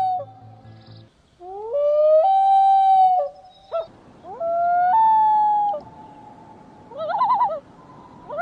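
Loon wailing: two long calls, each rising and then holding a steady note, followed near the end by short wavering calls.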